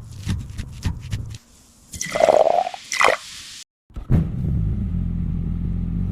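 A string of short metallic knocks and a brief swooshing sweep, then, after an abrupt cut, a car engine running steadily with a low rumble.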